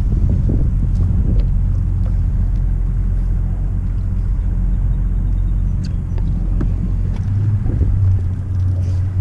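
Boat's outboard motor idling with a steady low hum, with a few faint clicks over it.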